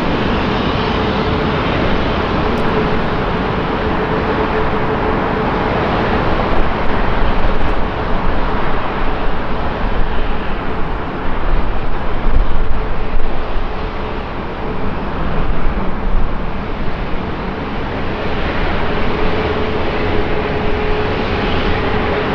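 Airbus A350-900's Rolls-Royce Trent XWB jet engines running at low thrust as the airliner taxis and turns: a steady roar with a held droning tone. A rougher, louder low rumble swells through the middle and eases off again.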